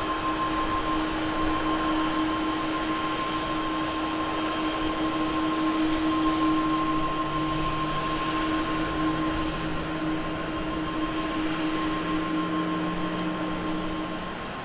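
All Nippon Airways Boeing 777-200ER jet engines running as the airliner rolls out on the runway after landing. A steady jet whine and rush, with a low hum that rises slightly in pitch over the second half.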